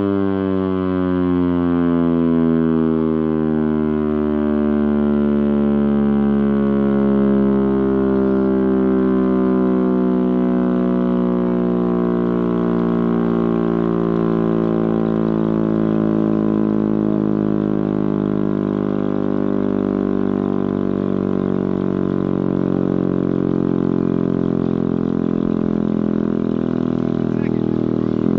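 Chrysler air raid siren, driven by its Hemi V8 engine, sounding a long wail whose pitch falls slowly for about twenty seconds as the rotor slows, with the engine running underneath. Near the end the pitch levels off and begins to rise again.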